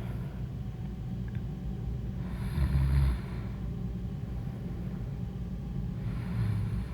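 A woman snoring in her sleep: a loud, low snore about two and a half seconds in and a weaker one near the end, roughly four seconds apart with each breath, over a steady low background noise.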